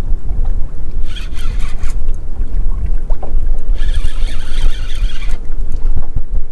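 Wind buffeting the microphone with a steady low rumble on a small boat at sea. Twice a short rasping hiss rises over it, about a second in and again near the middle, from the fishing reel while a conger eel holed up in a snag is pulled on.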